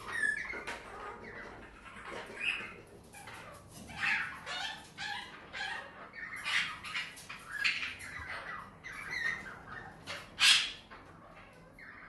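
Pet budgerigars and cockatiels calling, a string of short chirps and squawks with one loud squawk about ten and a half seconds in.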